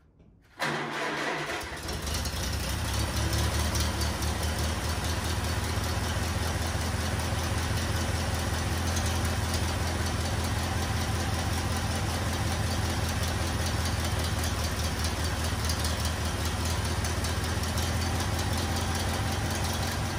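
A piston engine starts up about half a second in and settles into a steady idle with an even, rapid beat.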